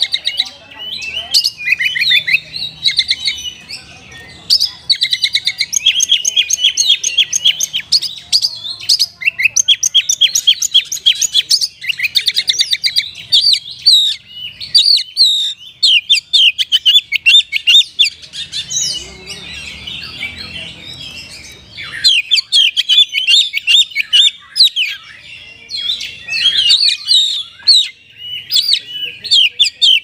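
Oriental magpie-robin singing a loud, fast, varied song of rapid repeated notes and trills, with a quieter stretch about two-thirds of the way through.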